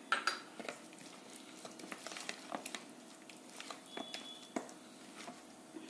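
A spoon stirring thick semolina batter in a plastic bowl: soft, irregular wet squelches and light taps of the spoon against the bowl, the batter thickened from resting.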